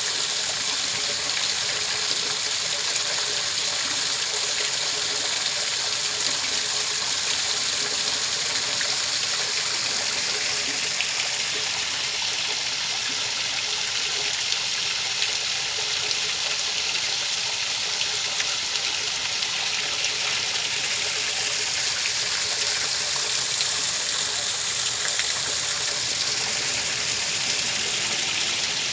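Steady rush of running water, an even hiss that stays constant without pauses or changes.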